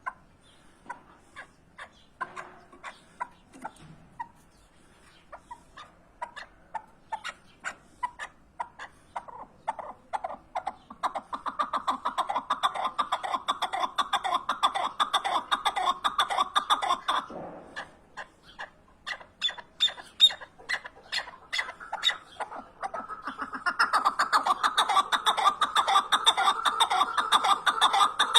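Chukar partridge calling: a run of short repeated notes that speeds up into rapid, continuous chattering, breaks off about 17 seconds in, then builds up again into the same fast chatter.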